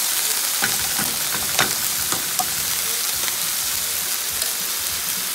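Spinach sizzling in a hot pan with a little grapeseed oil, a steady hiss, while it is stirred around, with a few sharp clicks in the first few seconds.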